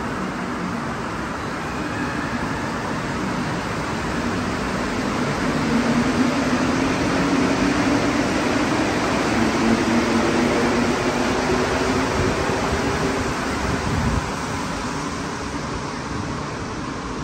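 Rubber-tyred Montreal Metro train running along the platform: a steady rumble with a motor hum that shifts in pitch as the train moves. The level drops abruptly to a quieter steady rumble about fourteen seconds in.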